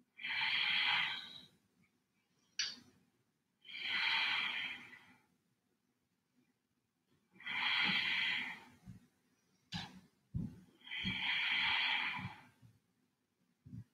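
A woman breathing slowly and audibly while holding a standing yoga pose: four long breaths, each about a second and a half, a few seconds apart.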